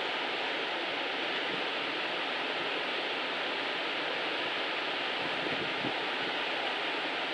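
Steady, even rushing noise like running water, with a faint steady high tone running through it.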